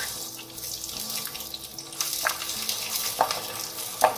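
Chopped onions sizzling in hot cooking oil, a steady hiss, with a few sharp taps of the spoon about two, three and four seconds in.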